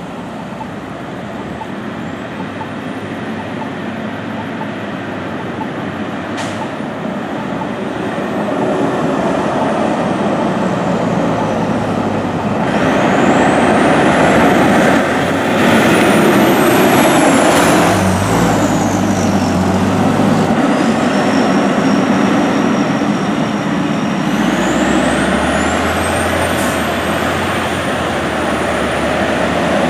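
Fire engine driving past with its siren winding slowly up and down over the engine and road noise. It grows louder as it approaches, peaks about halfway through, then fades as it drives away.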